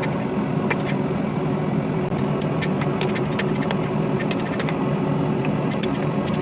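Propane-fired forge burner running steadily, with scattered sharp ticks and clicks over it now and then.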